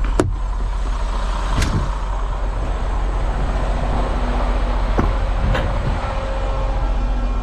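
Semi truck's diesel engine idling, a steady low rumble heard from the cab, with four sharp knocks spread through.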